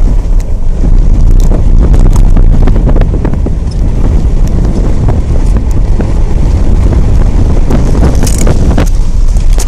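Strong wind buffeting the microphone, a loud, constant rumble with gusty thuds throughout.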